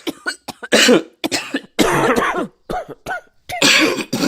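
A person in a coughing fit: a rapid string of coughs, about ten in four seconds, some short and some drawn out.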